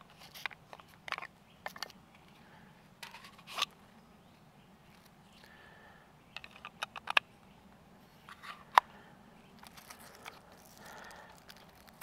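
Victorinox Venture Pro knife and its hard plastic sheath and carrying system being handled: scattered sharp clicks and light knocks as the knife is drawn and the sheath is fitted into the carrier, with one sharpest click about two-thirds through.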